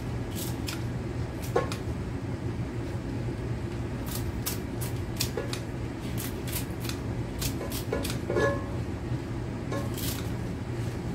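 Kitchen scissors snipping leafy greens into a pot: a string of short, crisp snips, coming quickest in the middle, over a steady low hum.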